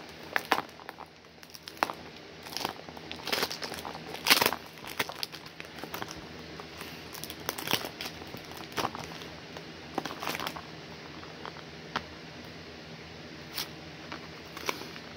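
Packaging being handled, irregular crinkling and rustling that thins out to a few scattered crackles in the last few seconds.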